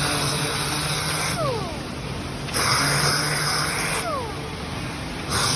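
Sanding: three long rasping passes of about a second and a half each, with short pauses between them, over a steady low hum.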